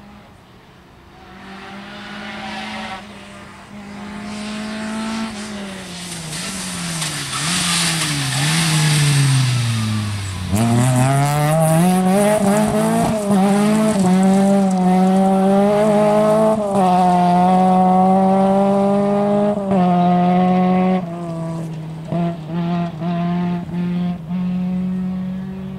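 Rally car engine coming closer, its revs falling in steps as it shifts down under braking. About ten seconds in it goes loud and accelerates hard, revs climbing through several upshifts. Near the end the throttle goes on and off in short bursts, and the sound fades.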